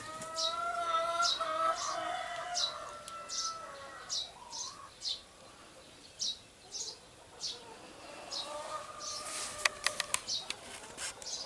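Small bird chirping over and over, short sharp chirps roughly one or two a second, with a longer wavering lower call in the first few seconds. A quick run of sharp clicks comes near the end.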